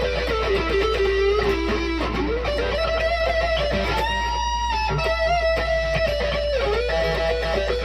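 Squier Pro Tone Stratocaster electric guitar playing a melodic single-note lead line of sustained, bending notes, with one long held higher note about four seconds in. A steady low hum sits underneath.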